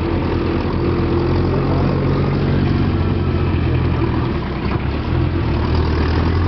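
Engine of a 4x4 off-road vehicle running steadily, with a low hum. The level dips briefly about four and a half seconds in.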